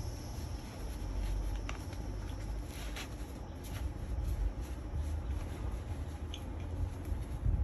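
Fabric rustling and handling noise as a Babyzen YOYO2 6+ stroller seat pad is smoothed and fitted onto the frame, with a few light clicks, over a low steady background rumble.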